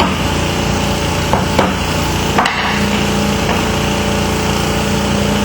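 Three sharp knocks from a rubber mallet tapping a glazing tool into the gap behind a window's glazing bead to pry it loose, the last and loudest about two and a half seconds in. A steady low engine-like hum runs underneath.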